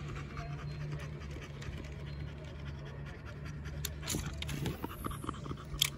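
Minn Kota Ultrex trolling motor humming steadily as it holds the boat on spot-lock. Over it come light clicks and handling noises, a brief rushing sweep that falls in pitch a little past the middle, and a sharp click near the end.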